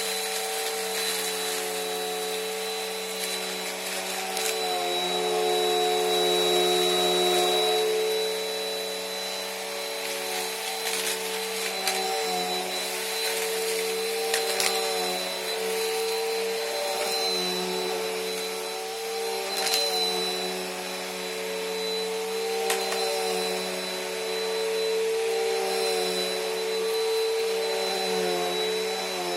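Bissell PowerLifter bagged pet vacuum cleaner running steadily while vacuuming up dirt. Its motor hum dips slightly in pitch now and then, with scattered clicks of debris being sucked up.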